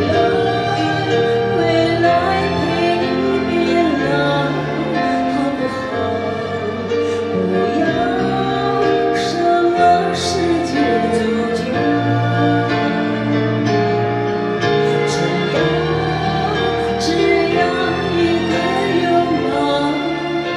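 A woman singing a slow song into a microphone over instrumental accompaniment.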